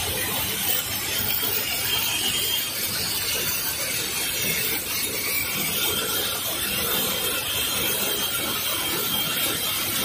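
Automatic snap hook assembling machines running: a steady mechanical clatter of fine rapid clicks over a constant hiss.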